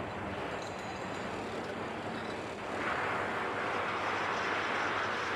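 A steady machinery rumble, then from about three seconds in a loud hiss of oil and gas jetting under pressure from a newly capped wellhead. The well is still flowing and not yet shut in.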